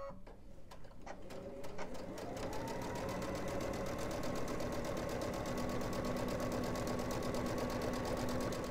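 Domestic electric sewing machine stitching through layered cotton: the needle starts about a second in, the motor speeds up over the next couple of seconds, then runs at a steady, rapid stitch.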